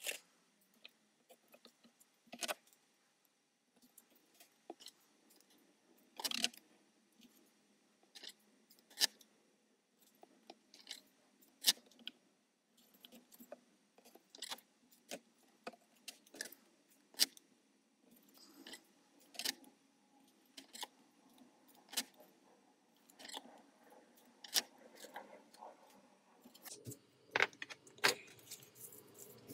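Card panels and a roll of double-sided tape being handled on a cutting mat: irregular sharp clicks and taps with light rustling, a couple of times each second, busier near the end.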